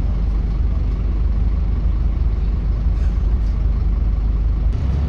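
Steady low drone of a Scania N270UB OmniCity bus's five-cylinder diesel engine, heard from inside the passenger saloon while the bus is under way, with road and body noise over it.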